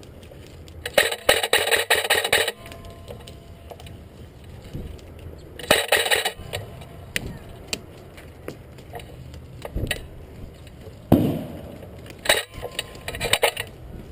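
Bursts of rapid clattering clicks from airsoft electric guns firing: a long burst about a second in, a shorter one near six seconds, and more bursts near the end.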